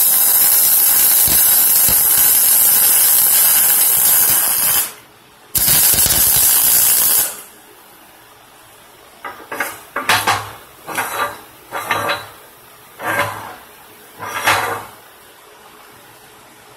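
MIG welder running a bead with a steady, loud hiss, stopping briefly and then running a second, shorter bead. After a pause comes a run of short, sputtering bursts, like quick tack welds.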